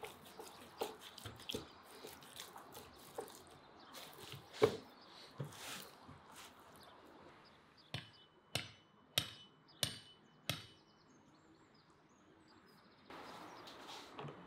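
Hands working spice into raw whole chickens in a metal tray: soft squelching with scattered knocks, the loudest about halfway through. Then five sharp hammer strikes a little over half a second apart.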